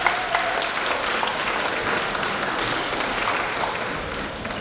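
Audience applauding, a dense clatter of many hands clapping that holds steady and then starts to die away near the end.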